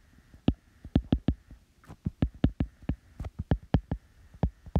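Stylus tapping and sliding on an iPad's glass screen while handwriting: a run of short, irregular soft taps, several a second.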